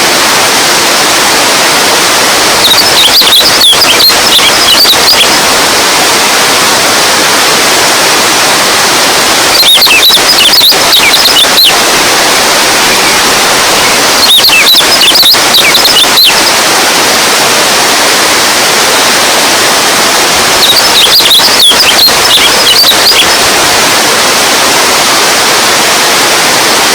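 Running water rushing steadily, with four short spells of high chirping over it.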